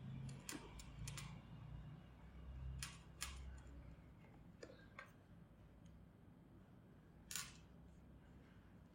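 Faint, scattered small clicks and taps of a screwdriver and tiny screws against a 2012 MacBook Pro's bottom case as its screws are taken out, about eight clicks in all, the loudest about seven seconds in.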